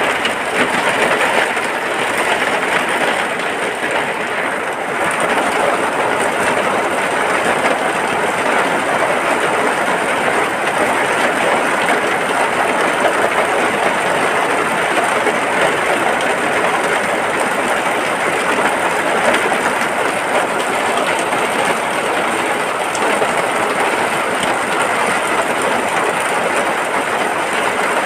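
Steady rain falling on and around a hut: an even, unbroken rushing hiss with no single drops or thunder standing out.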